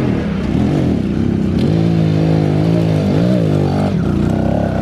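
Kawasaki KLX110 pit bike's small four-stroke single-cylinder engine under load on a steep dirt hill climb, its note sagging and picking back up as it pulls. It is lugging in third gear, too high for the climb, and bogging.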